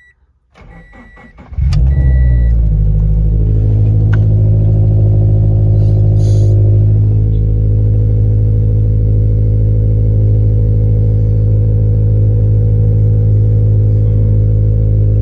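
A Scion FR-S's FA20 2.0-litre flat-four boxer engine being started on its first run after an Accusump oil accumulator install. A short repeating beep and brief cranking come first, then the engine catches about a second and a half in and settles into a steady idle.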